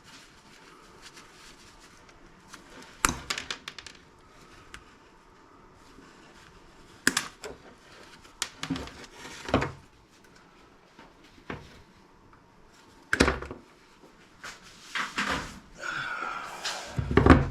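Scattered knocks and clatters of parts and tools being handled while a small motorised appliance is taken apart. There are single sharp knocks about three, seven, nine and a half and thirteen seconds in, and a busier run of rattling near the end.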